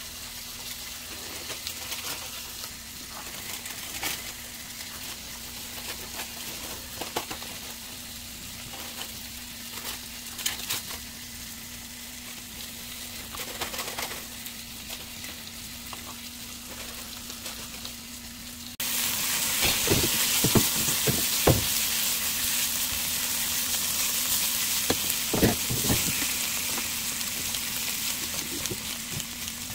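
A kitchen knife cutting luncheon meat on a wooden cutting board: scattered taps and knocks of the blade against the board over a steady low hum. About two-thirds of the way through it switches abruptly to the meat frying in a pan, a louder even sizzle with the knock and scrape of a silicone spatula stirring.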